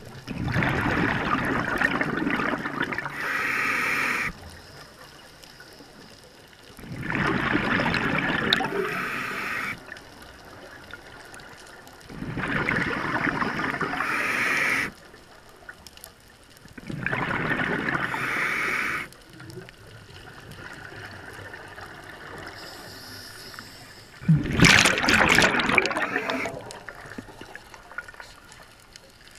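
Scuba regulator breathing heard underwater: five bursts of exhaled bubbles, each two to four seconds long, coming every five seconds or so with quieter gaps between.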